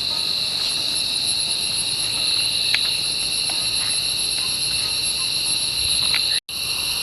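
Steady, high-pitched chorus of insects shrilling in several continuous bands, with a few faint ticks. It cuts out for an instant about six seconds in.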